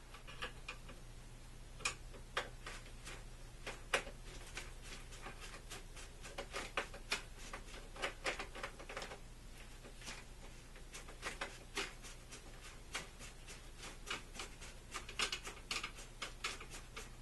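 Irregular small clicks and ticks of a screw and nut being worked out of the top of a marker board's frame, coming in loose clusters.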